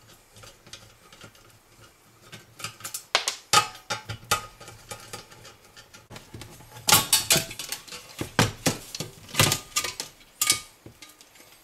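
Screwdriver and sheet-steel parts of a flat-panel monitor's chassis being handled: scattered light metal clicks, then a denser run of metallic clatter from about seven seconds in as the steel shield cover is lifted off.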